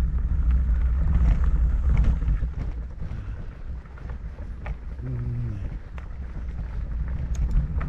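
Rumble of a fat bike being ridden along a trail, with wind buffeting the microphone. The rumble eases off after about two and a half seconds, a few sharp clicks and knocks come through, and a short low hum sounds about five seconds in.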